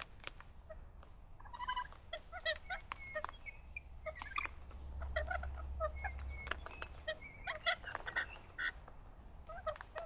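Parrots calling and chattering: a busy run of short chirps and whistled notes with sharp clicks among them, over a low rumble that swells in the middle.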